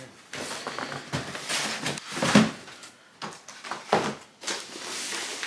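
Cardboard shipping boxes being handled and set down on a wooden floor: a series of scrapes and dull thuds, the loudest thump a little over two seconds in.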